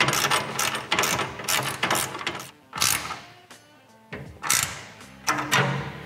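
Socket ratchet clicking in quick strokes as the bolt on a lower clamping bracket is tightened snug, then a few slower strokes, with background music fading in during the second half.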